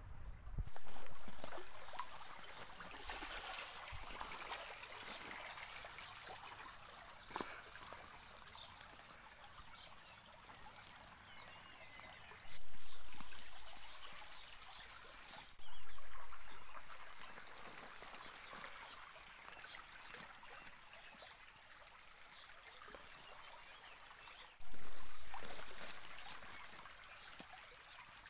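Shallow, stony stream trickling and burbling over rocks. The water sound jumps suddenly louder four times and fades back over a few seconds each time.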